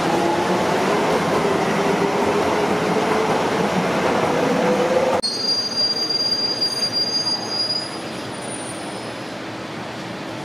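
Docklands Light Railway train pulling away: rolling noise with the traction motors' whine rising steadily in pitch. About five seconds in it cuts off suddenly to a high-pitched wheel squeal from a DLR train taking curved track, which fades after a few seconds to a quieter rumble.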